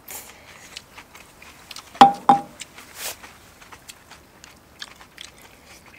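People chewing ramen noodles, with small wet clicks throughout. About two seconds in come two sharp clinks of tableware with a brief ring, the loudest sounds.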